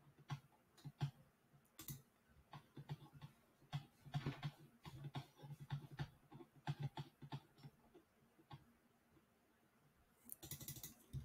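Faint computer keyboard typing and clicks: irregular short taps, with a quicker run of keystrokes near the end.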